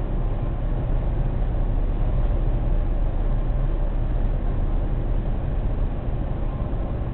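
Car driving at highway speed, heard from inside the cabin: a steady low rumble of tyres and engine.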